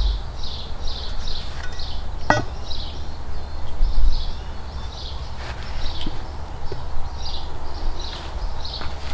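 A short high chirp repeating about twice a second over a steady low rumble, with a single sharp knock about two seconds in.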